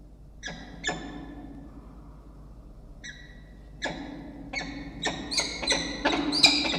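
Peregrine falcons giving pair-bonding ee-chup calls during a bowing display. Short, harsh calls come twice in the first second, then faster and louder through the second half.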